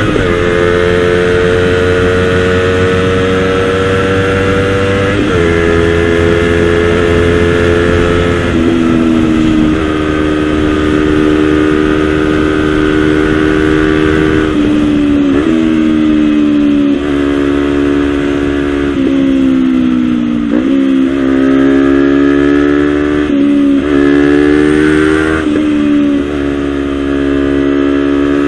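Honda CBR250RR parallel-twin engine running through a Villan SV1 slip-on exhaust while moving, the engine note climbing slowly and dropping sharply several times, about a second apart at the closest and several seconds apart at the widest.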